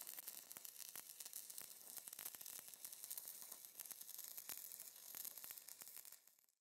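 Near silence: a faint crackling hiss with scattered small clicks.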